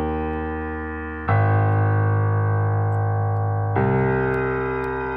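Music: sustained keyboard chords, a new chord struck about a second in and another near four seconds in, each fading slowly.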